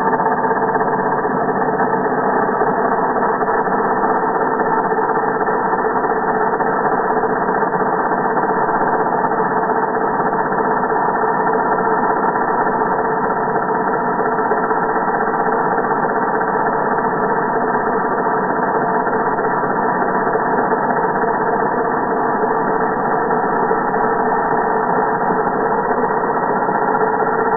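Electric angle grinder running, its sound slowed down along with the 240 fps footage into a deep, steady drone with several held tones.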